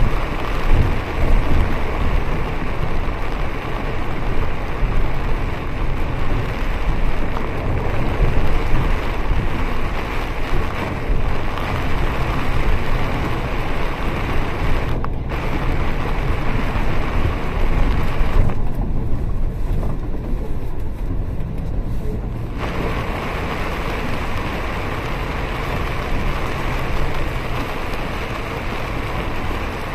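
Heavy rain hitting a moving bus, heard from inside the cabin, over the steady low rumble of the bus engine and tyres on the wet road. The rain's hiss drops away for about four seconds around two-thirds through, leaving the rumble.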